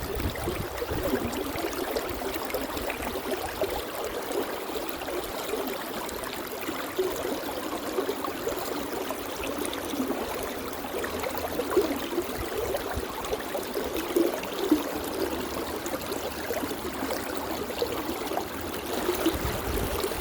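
Stream water running and gurgling steadily over stones, with small splashing and bubbling flickers.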